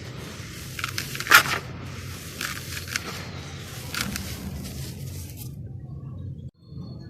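Dry charcoal-black sand-cement slabs crumbling and crunching, with a run of short crisp cracks and crackles, the loudest about a second in, over a steady low hum.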